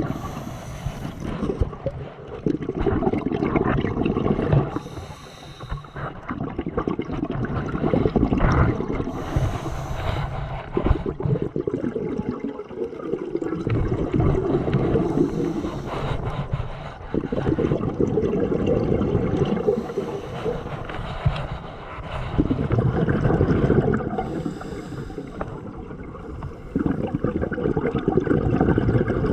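Scuba diver breathing through a regulator underwater: rumbling exhaust bubbles alternating with short hissing breaths, about one breath cycle every four to five seconds.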